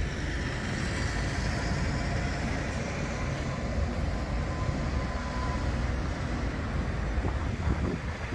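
Bombardier Flexity 2 tram moving slowly round a curve on street track, a steady low rumble of its running gear and wheels on the rails, with a faint thin whine through the first few seconds.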